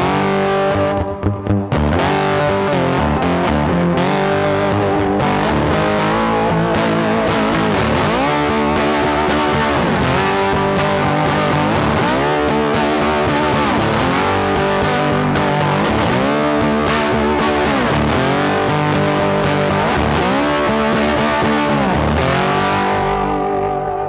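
Background music: a distorted electric guitar track with notes that repeatedly bend in pitch.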